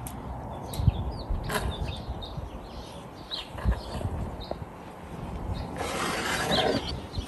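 Scattered knocks of a knife on a cutting board as tomatoes are diced, with a short rasping, scraping noise near the end. Birds chirp in the background.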